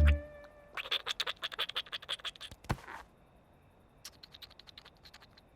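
A rapid run of light scratching clicks, about ten a second, lasting about two seconds, with one heavier dull stroke near its end; then fainter, scattered ticks.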